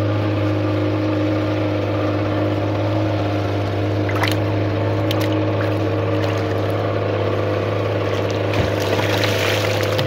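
A boat motor running steadily with an even low hum. Near the end water splashes as a bamboo pole is hauled out of the river.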